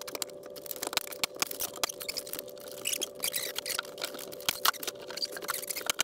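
Scattered sharp clicks and knocks as crown molding is pressed into place against the ceiling and fixed with a pneumatic finish nailer; the loudest crack comes about three-quarters through. A steady faint hum runs underneath.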